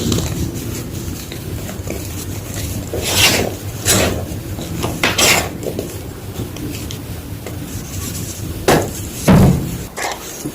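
Fresh gym chalk being crunched and crushed: a run of sharp, gritty crunches about three, four and five seconds in and again near the end, over a continuous rubbing, crumbling noise.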